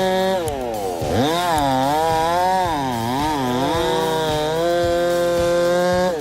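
Husqvarna 390 XP two-stroke chainsaw running at high revs. Its pitch dips and recovers several times as the chain loads up in the cut, then holds high and steady until it falls away at the very end.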